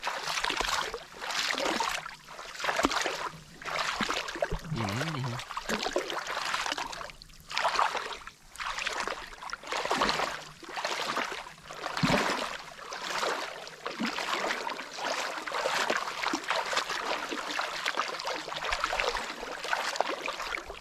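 Water splashing and sloshing in uneven surges, one every second or two.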